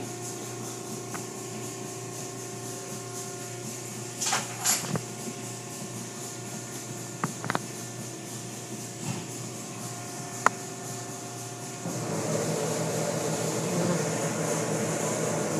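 Automatic car wash machinery heard from inside the car: a steady machine hum with a few short knocks. About twelve seconds in it turns louder and denser as the foam-soaked cloth curtain strips sweep over the car.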